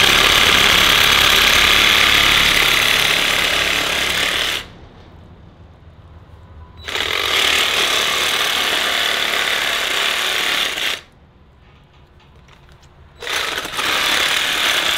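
DeWalt reciprocating saw cutting through deer rib bones along the backbone, run in three bursts of a few seconds each with two short pauses between.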